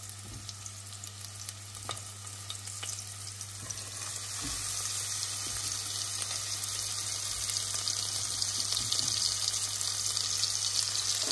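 Flour-dredged pork chops frying in hot lard in a stainless steel pot, a steady sizzle. The sizzle grows louder about four seconds in, as a second chop is laid into the fat.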